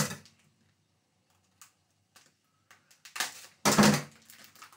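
A pack of beetroot being handled and opened: a short knock at the start, then two loud rustles a little over three seconds in, with a few faint clicks after.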